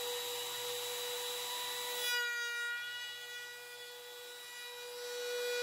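Bosch PR20EVS compact router with a flush-trim bit running at full speed with a steady high whine, trimming a solid-wood edge band flush with a plywood panel. About two seconds in, the tone changes as the bit works along the edge, and the motor cuts off right at the end.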